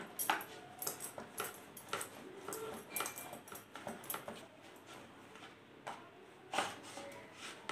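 Wheat-flour dough being kneaded and rolled by hand on a bamboo cutting board: irregular soft taps, knocks and rubbing, with a louder knock near the start and another about two-thirds of the way through.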